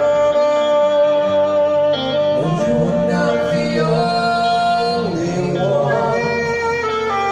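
Live rock band music: long held melodic notes over the band, with a sung line.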